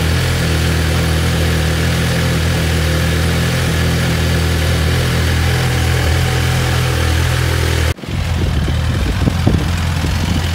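2017 Suzuki GSX-R1000's inline-four engine idling steadily. It breaks off for an instant about eight seconds in and carries on a little less evenly, with a brief rise in level shortly after.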